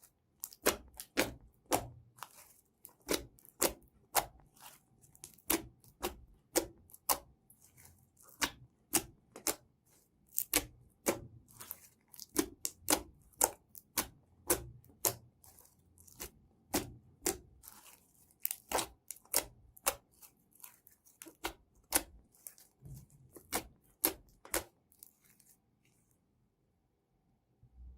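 Slime being squeezed and stretched by hand, giving a string of sharp crackling pops, a few a second, that stops near the end.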